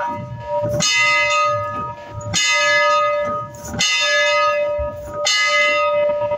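Steam locomotive bell ringing steadily, heard from the cab: about one strike every second and a half, each ring sounding on until the next.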